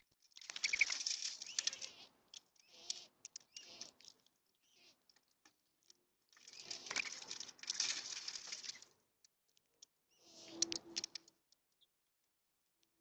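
Birds flapping and scuffling at a feeder: four bursts of wing flutter with sharp clicks, the longest about a second in and again past the middle.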